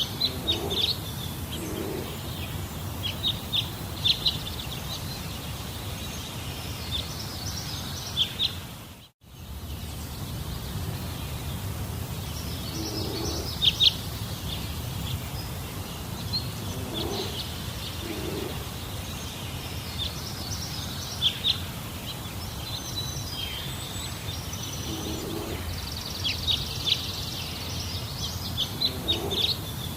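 Forest ambience: birds chirping in short scattered clusters of high calls over a steady low background noise, with a brief dip to silence about nine seconds in.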